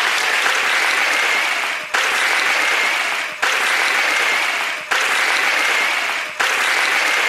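Congregation applauding, a dense, even clapping that dips and starts afresh about every second and a half.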